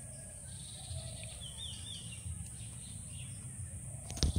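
Outdoor ambience: a bird calling with a short run of quick wavering notes, over a steady high insect hum and a low rumble. A single sharp knock comes near the end.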